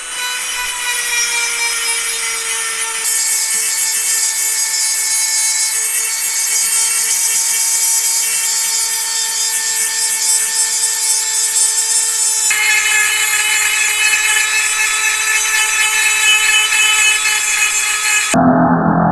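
Electric power tool running steadily with a constant high whine, steel being ground or abraded against it with a harsh rubbing hiss that changes character twice as the work is shifted. The sound cuts off abruptly near the end.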